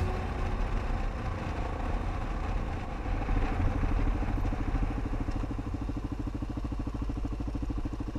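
Motorcycle engine heard from the rider's seat, with wind rushing past at first. About halfway through the wind dies down and the engine settles into an even low-revs beat as the bike slows.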